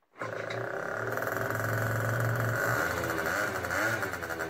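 Scooter engine running and revving, its pitch rising and falling a few times.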